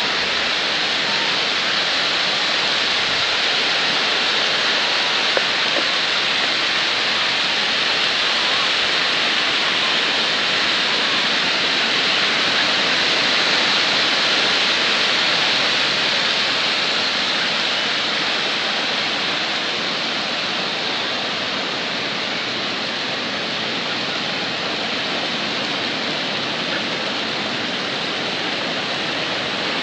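Water flowing over a dam and churning into whitewater below, a steady rushing that swells slightly about halfway through, then eases a little.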